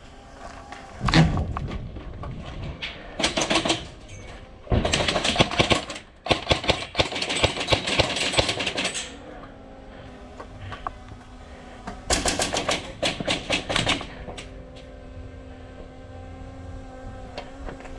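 Airsoft guns firing full-auto bursts of rapid clicking: a short burst about three seconds in, a long run from about five to nine seconds, and another burst near twelve seconds. A heavy thump comes about a second in.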